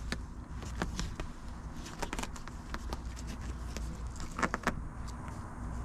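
Curtain fabric rustling, with small scattered crackles and clicks as a blackout curtain is pressed onto a Velcro strip along the van ceiling, a few sharper ones about four and a half seconds in. A low steady hum runs underneath.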